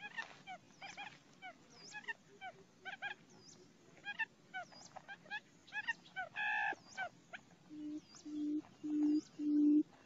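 Bird calls: short, thin chirps several times a second, with one louder honk-like call about two-thirds in. Near the end comes the low hooting of a barred buttonquail, about two hoots a second and growing louder.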